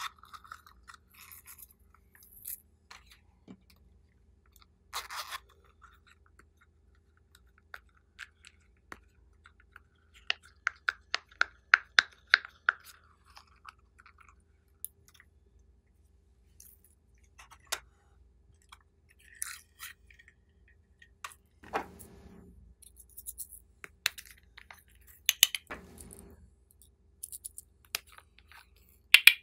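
Hands handling and opening small plastic toy containers: scattered clicks, taps and rustles, with a run of rapid clicks for a few seconds near the middle and a few duller rubbing noises later on.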